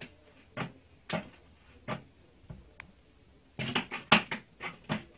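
Small plastic bucket knocked and rattled as a cat paws at it: a few separate knocks, then a quick cluster of louder knocks and rattles about three and a half seconds in.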